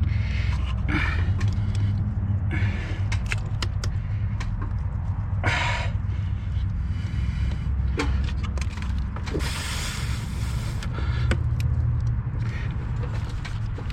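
Small clicks, scrapes and creaks of a plastic disconnect tool being worked into a fuel-line quick-connect fitting on an engine, over a steady low hum. A brief rushing noise comes about ten seconds in.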